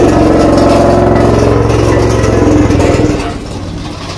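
Road roller's engine running under load, its pitch sagging slightly, then dropping to a lower, quieter note about three seconds in.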